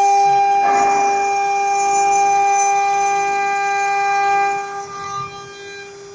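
CNC router spindle running with its end mill cutting acrylic sheet and aluminium-plastic composite panel: a loud, steady, high whine. About four and a half seconds in the sound drops sharply, leaving a quieter steady tone.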